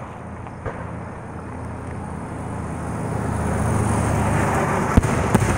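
Aerial firework shells bursting: two sharp bangs about five seconds in, less than half a second apart, the first the louder. Under them, a rushing noise swells over a few seconds and then eases off.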